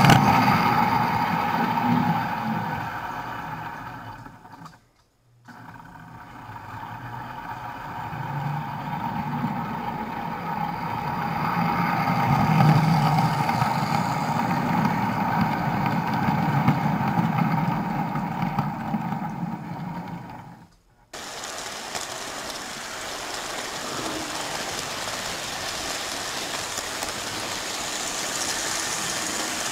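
A 1948 American Flyer No. 350 Royal Blue S-gauge steam locomotive, freshly cleaned and lubricated, running on the track with its cars: a steady motor hum and wheel rumble that swells as the train passes and falls away again. The sound fades out briefly twice, and near the end it goes on quieter and steadier.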